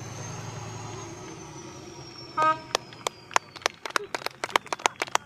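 Trial truck's engine running and fading away. About two and a half seconds in there is a short, loud horn toot, then rapid, even hand clapping at about four to five claps a second.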